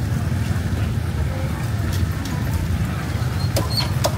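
Outdoor market ambience: a steady low rumble with a faint hubbub of voices, and a couple of sharp knocks about three and a half to four seconds in.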